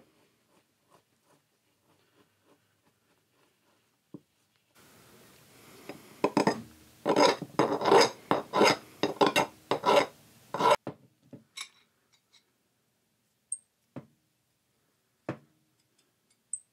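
Flat hand file scraping back and forth across a small steel part, about three strokes a second for roughly five seconds. A few light clicks and knocks come before and after the filing.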